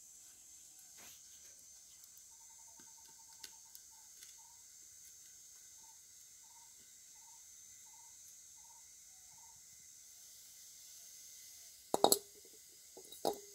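Metal pot lid clanking, twice near the end with a short ring, as it is lifted off a pot of steaming puttu over a wood fire. Earlier, a bird calls a run of short, evenly spaced notes over a steady high insect buzz.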